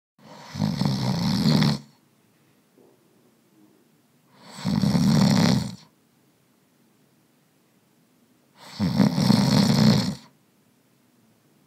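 A person snoring: three long, rattling snores about four seconds apart, with quiet breathing pauses between them.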